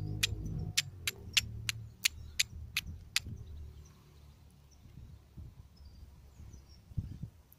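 Carbon-steel fire striker struck against flint in quick glancing blows to throw sparks onto amadou: sharp strikes about three a second, stopping a little after three seconds in. A low rumble runs underneath, and faint bird chirps come in near the end.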